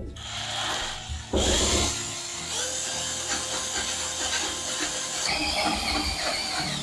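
Hand-held power drill with a large wood-boring bit cutting a shallow recess into a solid beech table top, the bit grabbing with heavy surges near the start and again about a second and a half in, then running on with a steady whine while it cuts.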